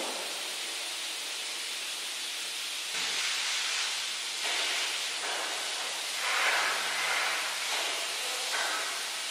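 A steady hiss, its tone and loudness shifting a few times.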